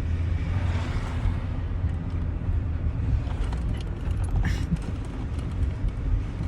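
Steady low road and engine rumble inside a moving car's cabin, with a brief swish about four and a half seconds in and a few light clicks.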